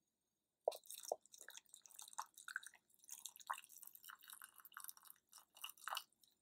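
Freshly boiled brine poured from a pan into a pickle jar packed with cucumber slices: faint, irregular drips, splashes and small crackles, starting just under a second in and stopping about six seconds in.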